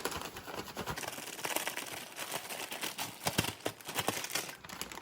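A sealed plastic Ziploc bag of flour and seasoning shaken by hand to mix it, giving a fast, irregular crinkling and rustling of plastic.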